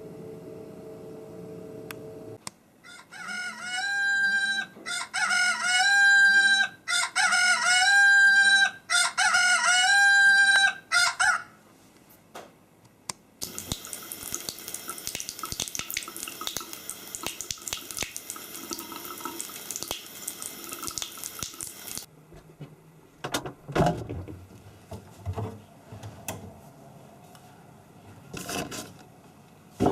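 An alarm clock ringing a repeating electronic tune for about nine seconds, followed after a short pause by water running from a tap into a sink, which stops suddenly; then scattered knocks and clatter.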